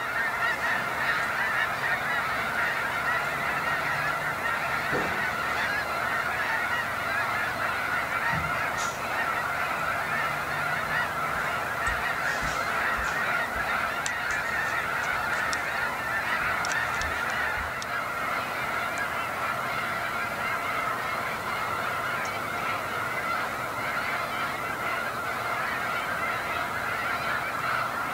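A large flock of snow geese calling: a dense, steady chorus of many overlapping honks.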